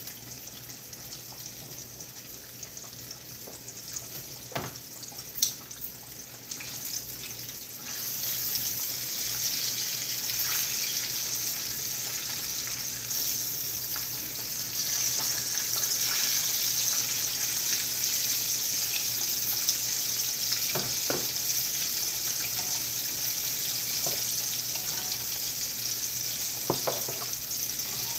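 Battered catfish frying in hot oil in a skillet: a steady sizzle that grows louder about eight seconds in, with a few sharp clicks of a utensil against the pan.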